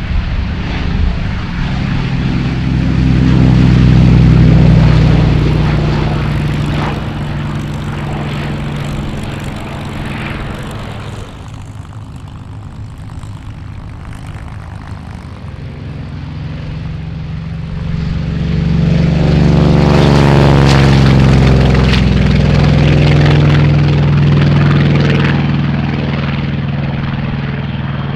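A Goodyear FG-1D Corsair's Pratt & Whitney R-2800 eighteen-cylinder radial engine runs at full takeoff power as the plane rolls past. It is loudest about four seconds in, and its pitch drops as it fades. Then a Grumman F6F-5 Hellcat, with the same radial engine, comes up at takeoff power. It is loudest a little past the middle and falls away as it lifts off near the end.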